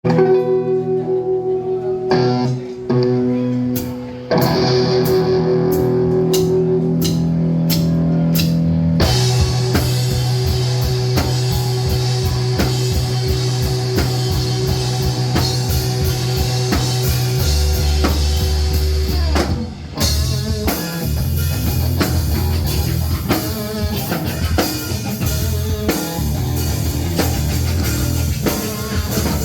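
Live band with electric guitar and drum kit playing rock music. It opens on held chords with scattered drum and cymbal hits, the full band comes in with a steady beat about 9 seconds in, and there is a short break near 20 seconds before it carries on.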